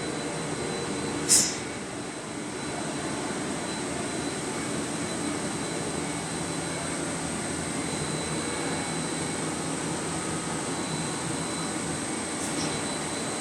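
Steady industrial machinery noise with a faint high whine. A short, sharp hiss comes about a second in, and a fainter one near the end.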